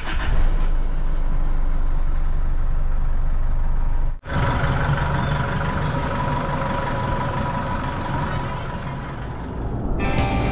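Pickup truck engine idling, heard first inside the cab and then, after a sudden cut about four seconds in, from behind the truck near the exhaust, where a thin steady whine runs over the engine.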